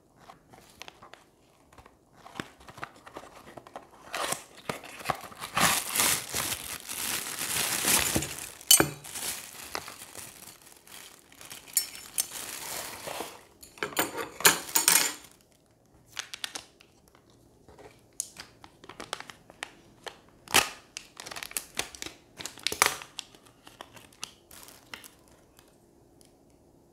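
Small clear plastic component bags crinkling as they are handled and one is pulled open. Long stretches of dense crinkling fill the first half, then sparser crinkles and light taps follow.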